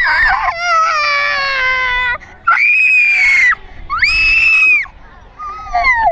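A young child screaming and crying: a long wail that falls in pitch, then two long high-pitched screams, and a short falling cry near the end.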